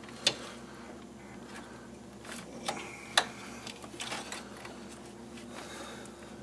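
A handful of light clicks and taps as parts and tools are handled while fitting an electric cooling fan assembly, the sharpest about a third of a second in and another about three seconds in, over a faint steady hum.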